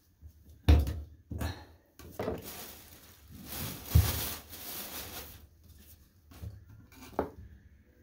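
A black plastic garbage bag rustling and crinkling for a few seconds as the old toilet wax ring is handled and dropped into it, with a couple of dull knocks and a few small taps.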